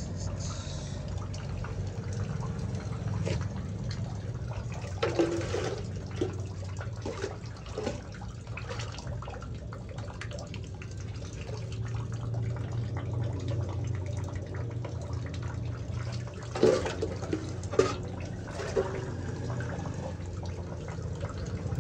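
Sewage water sloshing and splashing in a manhole as a worker moves and works in it, with a few louder splashes, over a steady low hum.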